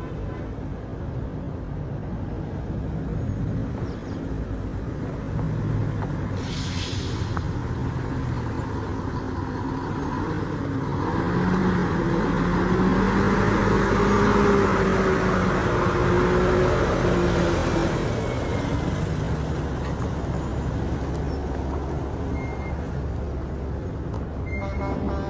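Road traffic: vehicle engines running and passing, with a brief hiss about seven seconds in. A heavier engine with a steady low tone grows louder from about a third of the way in and fades again a little past the middle.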